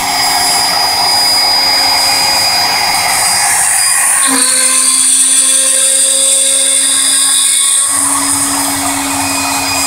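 CNC router spindle running at high speed with a small end mill cutting a metal mold plate under a coolant drip: a steady high-pitched whine over rougher cutting noise. A little over four seconds in, the rougher noise thins out and the pitch shifts, leaving mostly the whine. The cutting noise comes back just before eight seconds.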